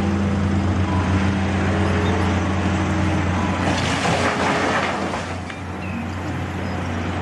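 Sound effect of a large truck's engine running steadily: a deep hum with a rushing noise over it. It eases off a little after the middle and cuts off abruptly.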